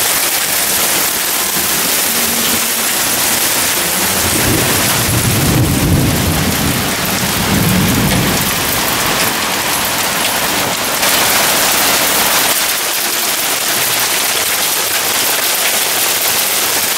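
Hail and rain pelting a wooden deck and a metal barbecue grill: a loud, dense, steady clatter and hiss. A low rumble rises under it about four seconds in and fades out by about eight seconds.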